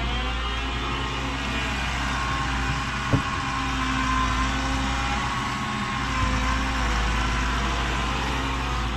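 Menzi Muck spider excavator's diesel engine and hydraulics running under changing load, the pitch rising and falling as it works, with a single sharp knock about three seconds in.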